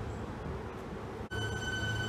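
Electric suburban train at a platform: a steady low hum from its onboard equipment, then, after an abrupt cut about a second in, a steady high-pitched whine joins it.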